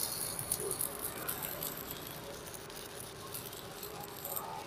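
Stick (MMA) welding arc crackling steadily as a 3.2 mm electrode is run at 150 A from a JACPRO ARC200PRO inverter welder. The arc burns evenly, which the welder takes as the sign of a very stable arc at that setting.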